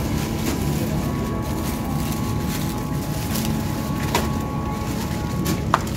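Supermarket background noise: a steady low rumble with faint steady tones above it, and two sharp clicks, one about four seconds in and one near the end.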